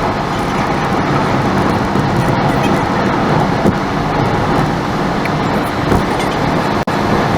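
Steady road noise of a car driving, a constant rush with a brief dropout near the end.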